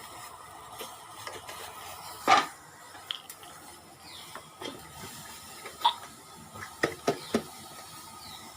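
Metal kitchen utensils clinking against a pot while tea is being made. Several separate sharp clinks: the loudest about two seconds in, and a quick run of three near the end.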